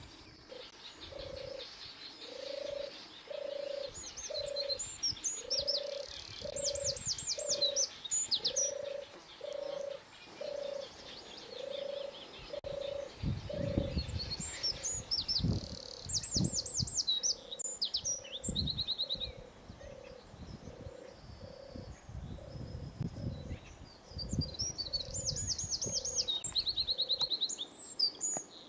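A frog calling: a soft low note repeated steadily, about one every two-thirds of a second. A small bird sings high chirping trills over it in several bursts.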